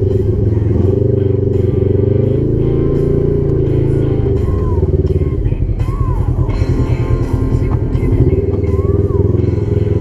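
Background music with a deep bass line that changes note every second or two and short bending notes above it.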